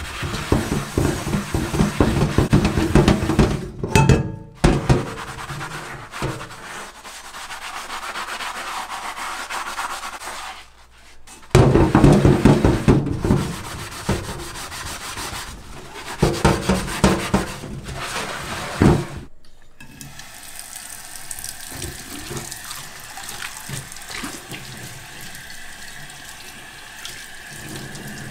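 A sponge scrubbing a foamy Turk Classic iron frying pan in a stainless steel sink, in short bursts cut together, then tap water running steadily over the pan from about two-thirds of the way through.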